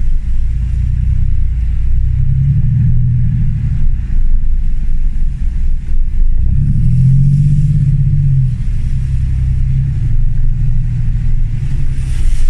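Land Rover Discovery 1's 300Tdi four-cylinder turbodiesel engine pulling off-road, its revs rising about two seconds in and again, more strongly, a little past halfway, over a steady low rumble.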